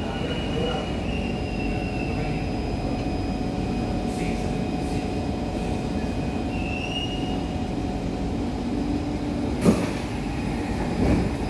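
Interior of a Kawasaki Heavy Industries C151 metro train running and coming to a stop, a steady rumble with faint whining tones. One sharp clunk sounds near the end.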